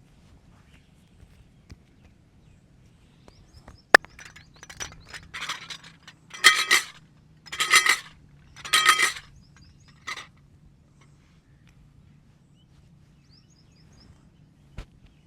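A sharp snap about four seconds in, then bursts of rapid hand clapping and slapping from a head massage: three loud bursts about a second apart, each lasting about half a second. Faint bird chirps in the background.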